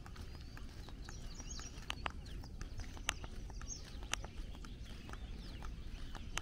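Footsteps on a paved road, with sharp shoe strikes about once a second over a steady low rumble. Small birds chirp from the roadside bushes.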